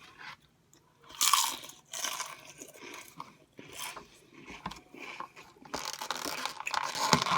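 Close-up eating sounds: a person biting and chewing crunchy takeout food, with irregular crunches, the loudest a little after a second in and a busier run of chewing near the end.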